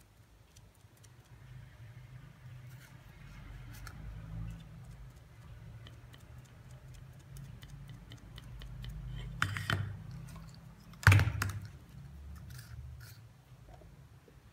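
Light taps and small clicks of paint being dabbed on with a sponge and craft materials being handled on a tabletop. Two sharp knocks come about nine and a half and eleven seconds in, the second the loudest.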